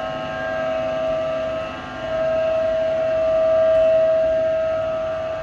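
Mori Seiki SL-403C CNC turning center running with a steady mechanical whine of several pitches at once. It swells in loudness, briefly dips about two seconds in, and peaks near four seconds.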